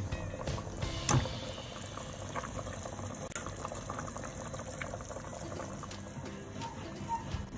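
Steady liquid sound from a cooking pot, with one sharp knock about a second in.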